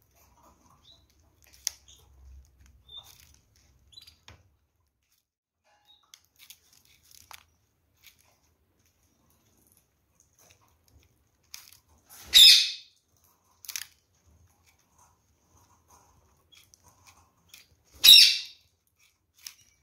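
Red-fronted kakariki parakeets picking and cracking seeds in a feeder tray: scattered soft clicks and rustles, with two loud, short bursts about twelve and eighteen seconds in.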